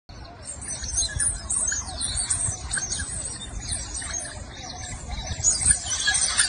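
A group of otters squealing and chirping in a territorial fight, many shrill calls overlapping, growing busier and louder about five seconds in.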